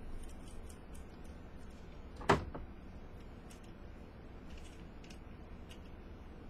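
Handling noise from vaping gear while its coil resistance is checked: a few faint clicks and one sharp knock about two seconds in.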